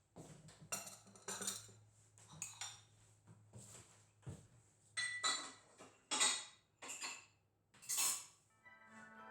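Dishes and cutlery being handled in a kitchen: a series of separate clinks and clatters, the loudest about two-thirds of the way through. Soft music comes in near the end.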